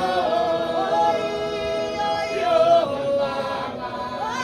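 Music: a song with sung vocals holding long, sustained notes.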